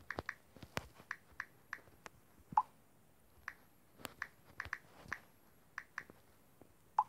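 Phone on-screen keyboard key-press clicks while a message is typed, a string of short irregular ticks. Two louder pops, about two and a half seconds in and again near the end, are WhatsApp's message-sent sound.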